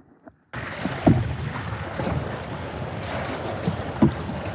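Surf breaking and rushing around a sit-on-top fishing kayak as it is paddled in through the waves, with wind buffeting the microphone; it starts abruptly about half a second in. Two heavier thumps, about a second in and near the end.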